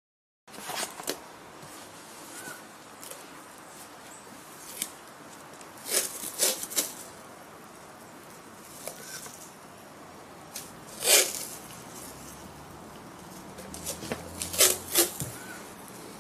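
Masking tape being pulled off its roll in short rips and pressed around a cement vase. The loudest rips come about six seconds in, around eleven seconds, and in a cluster near the end.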